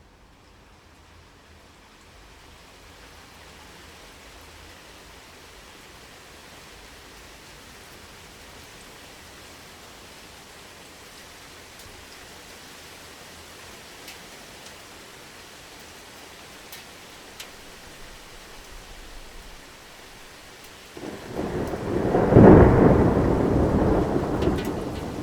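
Steady rain falling, fading in over the first couple of seconds. About 21 seconds in, a loud clap of thunder breaks in and its rumble slowly dies away.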